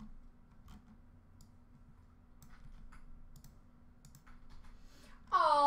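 Faint, scattered computer clicks over quiet room tone with a low steady hum. Near the end a loud voice suddenly comes in.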